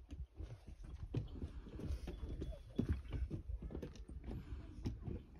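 Irregular hollow knocks and bumps, like footsteps on a wooden boardwalk, over a low rumble.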